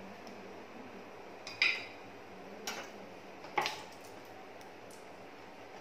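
Three light clinks of a metal spoon against cookware, about a second apart.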